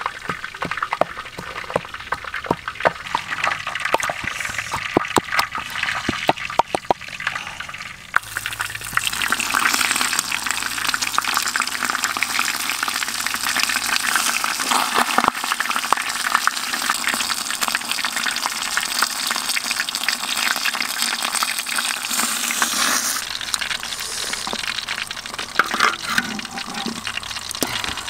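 Wooden pestle knocking in a wooden mortar, a run of sharp knocks; about eight seconds in it gives way to a clay pot of water boiling hard, a dense bubbling hiss that lasts to the end.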